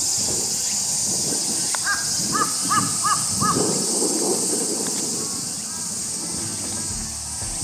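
A crow cawing four times in quick succession, then fainter caws later, over a steady high-pitched hiss.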